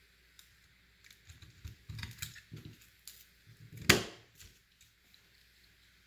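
Hardware being handled during a PC build: a run of small clicks and rustles, then one sharp knock a little before four seconds in.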